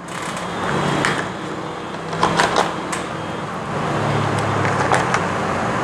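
A road vehicle's engine running, growing louder over the last couple of seconds, with a few sharp clicks and rustles of the phone's accessory box and coiled data cable being handled.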